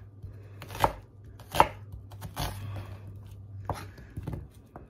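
Chef's knife slicing an onion on a wooden cutting board: five slow cuts about a second apart, each ending in a knock of the blade on the board.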